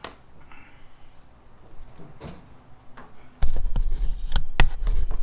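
Car hood being lowered onto a freshly fitted hood pin: a few light clicks, then from about three and a half seconds in a louder low rumble with several sharp knocks as the hood panel comes down and meets the pin.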